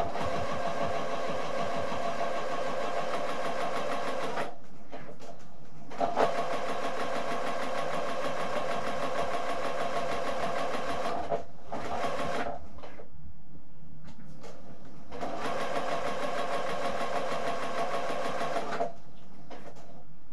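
Electric domestic sewing machine stitching a seam at a fast, even rate, in several runs separated by short pauses.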